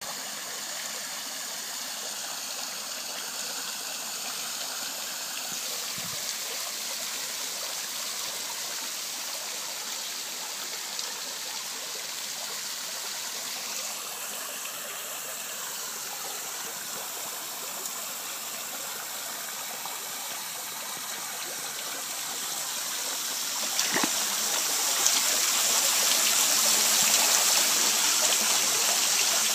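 Water falling from the coiled copper tubes of an egg-shaped fountain sculpture, splashing and trickling steadily into its pool. It grows louder about three quarters of the way through and stays louder.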